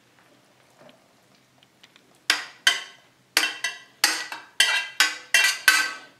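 Metal ladle scraping and knocking against a stainless steel sauté pan as fusilli is scraped out of it. About two seconds in, a quick run of roughly eight sharp metallic clanks begins, each ringing briefly.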